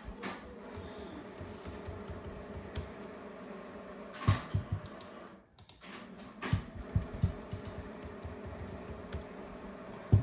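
Typing on a laptop keyboard in a few short bursts of keystrokes, entering login details, over a steady low hum.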